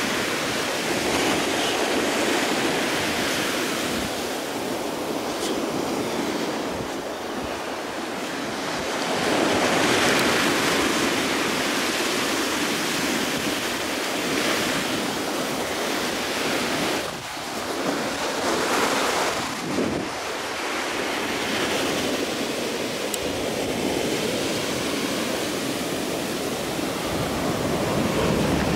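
Ocean surf breaking and washing up a black-sand beach, rising and falling in slow swells as the waves come in, with some wind on the microphone.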